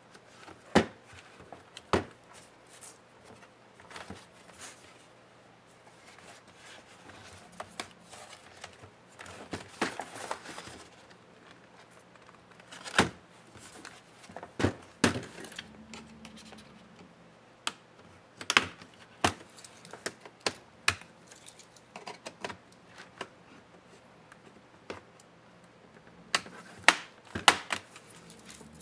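Plastic laptop case handled on a table: scattered knocks and clicks as it is turned over and set down, with some rubbing noise about ten seconds in.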